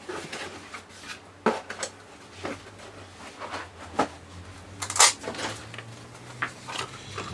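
Metal multitools being handled and set down on a hard surface: scattered clicks and clinks, a few louder knocks about a second and a half, four and five seconds in, over a faint low hum.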